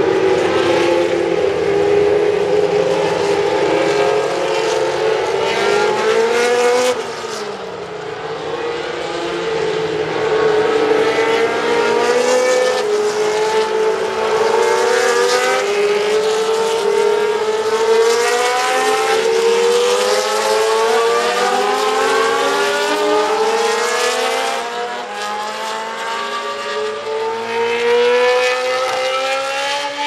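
Several historic Formula One cars with Cosworth DFV V8 engines, passing one after another. Their engines rev up through the gears with overlapping, repeatedly rising notes as they accelerate out of the corner. There is a brief dip as the pack thins about seven seconds in.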